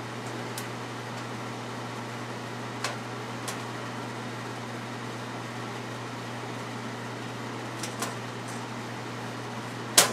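Small metal screws and parts being handled: a few light clicks and taps, then a sharper, louder click near the end as a screwdriver is taken up. A steady low hum, like a fan or air conditioner, runs underneath.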